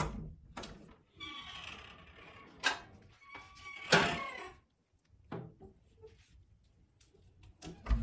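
Sandblast cabinet door latch and door clunking as the door is unlatched and opened and rusty sheet-steel toy truck parts are set on the metal grate inside. There are two drawn-out squeals with a steady pitch in between, and metal clunks at the start, around the middle and near the end.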